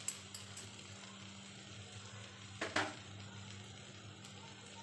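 Faint sizzle of onion-tomato masala frying in a pan over a steady low hum, with a brief double knock a little past halfway.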